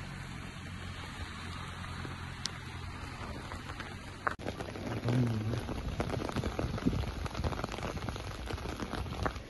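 Heavy rain falling, an even hiss at first; about four seconds in it cuts abruptly to closer, louder drops pattering densely on a hard surface.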